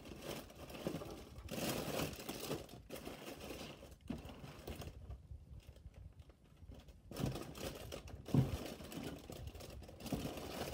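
Plastic bags and packets of slime supplies crinkling and rustling as they are rummaged through in a box, quieter for a couple of seconds in the middle, with a louder bump about eight seconds in.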